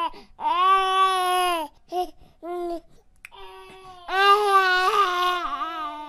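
Baby crying: a long wail, two short cries, then another long wail that wavers and breaks up near the end.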